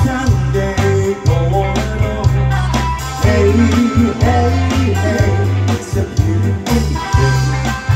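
Live band playing a pop-rock cover: drums, electric guitars, bass guitar and keyboard, with women singing into microphones over a steady bass line and drum beat.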